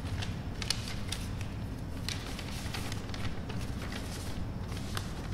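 Paper or cards being handled: irregular small rustles and clicks over a steady low hum.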